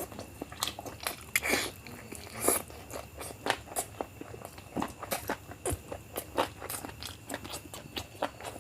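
Close-miked chewing of biryani: a steady run of wet mouth smacks and short crunchy clicks as a person eats.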